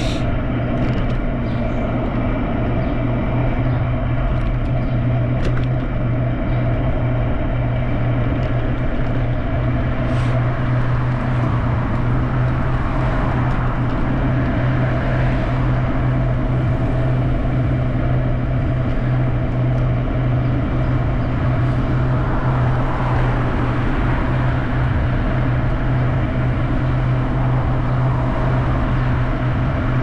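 Steady running noise of a ride at constant speed along a street: a low hum with road and wind noise, and a few faint clicks in the first several seconds.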